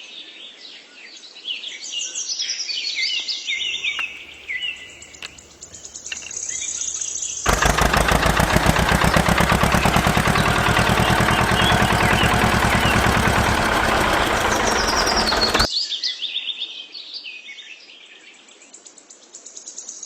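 Birds chirping, broken in the middle by about eight seconds of a loud, even, fast-pulsing mechanical noise that starts and stops suddenly.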